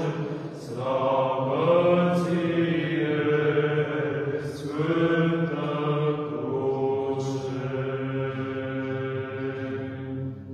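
Orthodox church chanter choir singing Byzantine-style chant. The voices sing a slow melody of long held notes over a steady low drone note.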